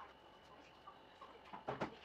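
Wet grey slurry being worked by hand in a plastic bowl, with a short cluster of soft knocks and splashes near the end.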